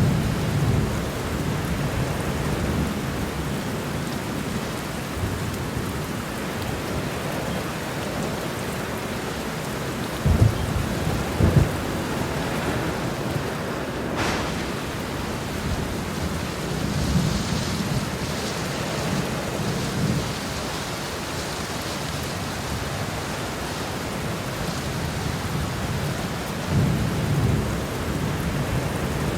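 Heavy rain falling steadily with thunder: two sharp cracks about ten seconds in, another crack a few seconds later, then low rolling rumbles, with a last rumble near the end.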